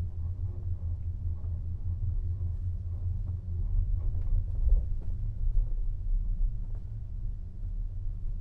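Low, steady rumble inside a moving Agamatic gondola lift cabin riding along the haul rope on its descent, with a few louder bumps about halfway through.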